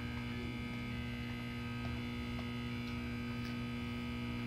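Steady electrical hum, a low buzz of several unchanging tones.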